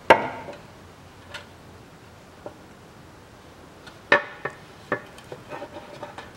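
Painted metal CVT oil pan knocking and clinking against the transmission case as it is lifted into place and lined up on its guide pins. There is a sharp knock right at the start, another about four seconds in, and a few lighter taps after that.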